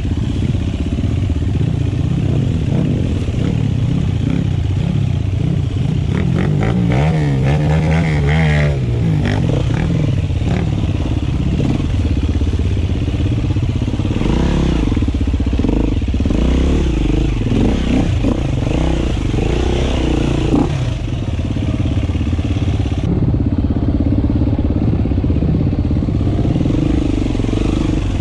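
KTM 350 dirt bike's single-cylinder four-stroke engine being ridden through deep mud ruts, its revs rising and falling constantly as the throttle is worked, with a quick rev up and back down about eight seconds in.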